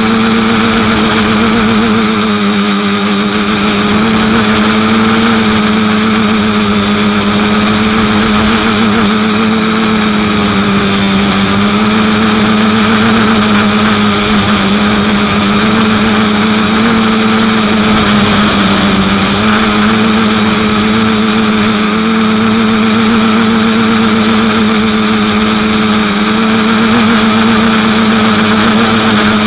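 Motor and propeller of a radio-controlled model plane, heard close up from a camera mounted on the airframe: a loud, steady drone whose pitch sags and rises a little every few seconds with the throttle, with a thin high whine above it.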